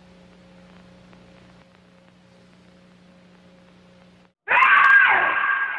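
A faint steady low hum, then a split second of silence and, about four and a half seconds in, a sudden very loud, high-pitched shriek that fades away.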